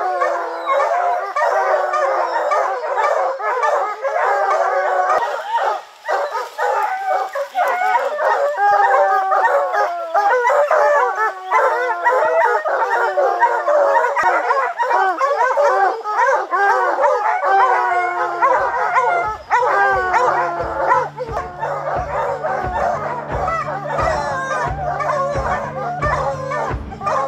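A pack of hounds baying together at the foot of a tree, many voices overlapping in long bawls and chops: the tree bark of hounds that have a black bear treed. About two-thirds of the way in, music with a steady beat comes in underneath.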